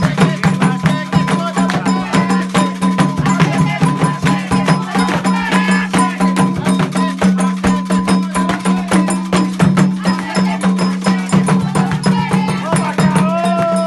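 Candomblé ceremonial music: drums played in a fast, dense rhythm with a clanking bell, and voices coming in with a sung line near the end.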